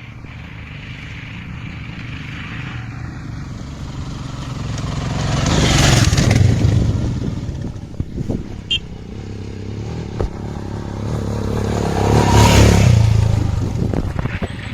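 Off-road motorcycle engines labouring up a rough hill track, swelling loud twice, about six seconds in and again near twelve seconds, with stones clattering under the tyres.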